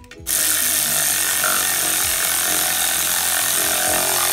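Power ratchet running steadily, spinning nuts down onto the exhaust manifold studs of a Detroit Diesel 8V71. It starts about a quarter second in and is loud and even, with a hissing edge.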